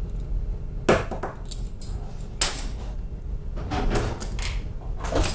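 Pocket items and a belt with a metal buckle dropped one after another onto a hard deck floor, clattering in about four separate bursts over a steady low hum.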